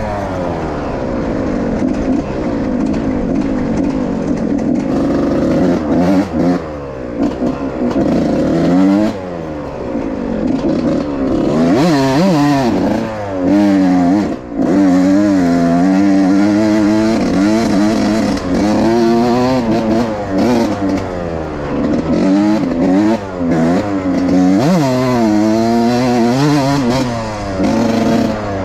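Suzuki RM 125 motocross bike's single-cylinder two-stroke engine ridden at full throttle, revving up and down over and over, its pitch climbing and dropping with throttle and gear changes.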